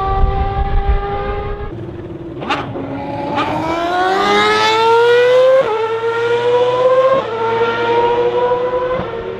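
Formula 1 car engine at high revs: the pitch sags, then climbs hard with three quick upshifts, each a sudden drop in pitch before it rises again.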